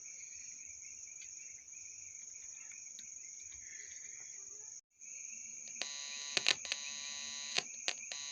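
A steady high insect trill like crickets, then a brief cutout. About a second later an electrical buzz from a homemade amplifier and speaker starts, with several sharp clicks.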